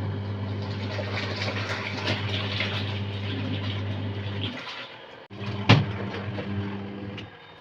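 Mini manual washing machine's electric motor humming as it turns the wet clothes, with water sloshing. It stops about four and a half seconds in, starts again under a second later with a sharp click, and stops again near the end.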